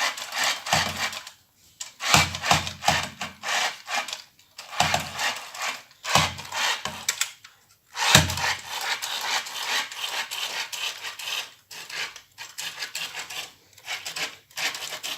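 Toys being handled: repeated rubbing and scraping in short, irregular bursts, some with a low knock.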